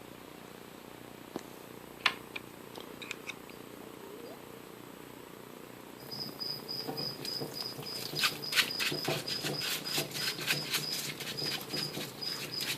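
Metal lathe change gears being handled and turned. At first only a few scattered clicks, then from about halfway a quick run of metallic clicks and clatter as the gears knock against each other.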